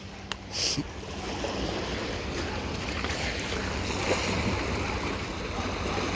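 Ocean waves washing on a beach, a steady rush of surf with wind buffeting the microphone.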